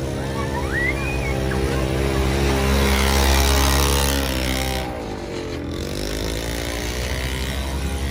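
A motor running steadily with a low hum. Its pitch dips and comes back up about five seconds in.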